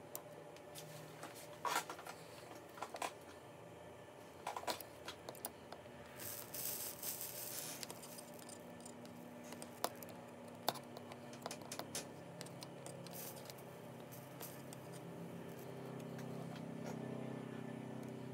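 Small clicks and taps of a soldering iron and pliers against the metal rods and plates of a slot car chassis being soldered, with a short hiss about six seconds in. A low steady hum comes in near the end.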